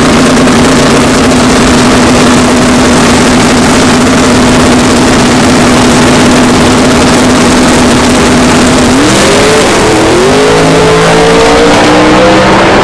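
Drag-racing car engines held at steady high revs at the start line, then launching about nine seconds in and accelerating hard, the pitch climbing and dropping back with each gear change.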